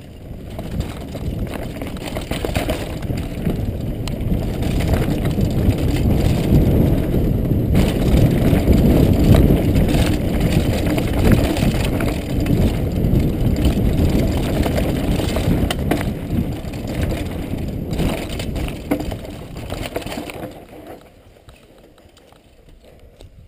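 Downhill mountain bike at speed on a rough dirt trail, heard from a helmet-mounted camera: wind buffeting and the rumble and rattle of tyres, chain and suspension over the ground. It builds through the middle and dies away about three seconds before the end as the bike slows, leaving a few faint clicks.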